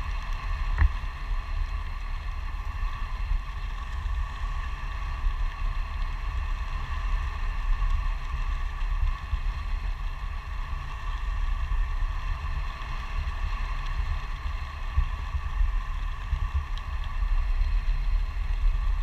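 Wind buffeting an action camera's microphone during a tandem parachute descent under an open canopy: a steady, fluttering low rumble with faint steady high tones above it, and a single short click about a second in.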